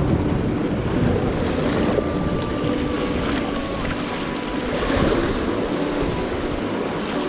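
Ocean surf washing steadily on the shore, with wind buffeting the microphone and a faint steady hum underneath.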